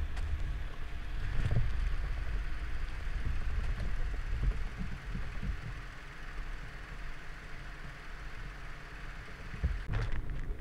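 Uneven low rumble from wind and handling on a handheld camera's microphone, over a steady outdoor hiss. Footsteps on gravel start near the end.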